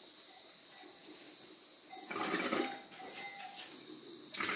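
Cricket trilling steadily on one high note, with a faint murmur of voices a little after two seconds in. Just before the end a rattling clatter starts up.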